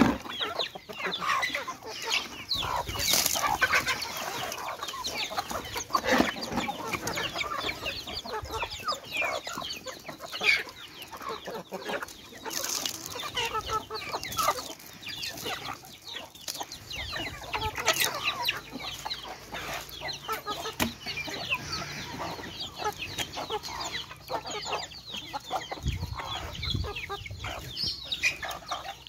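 A flock of domestic chickens clucking while they feed, many birds calling over one another, with a few louder calls standing out.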